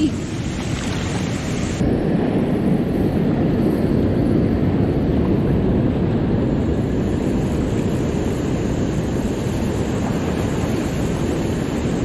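Steady rush of water pouring through a lake spillway, a loud, even noise without breaks.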